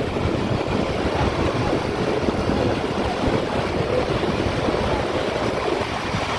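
Motorcycle engine running at road speed, mixed with a steady rush of wind buffeting the microphone.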